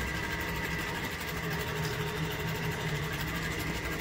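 A machine running steadily, with a constant high whine over a low hum.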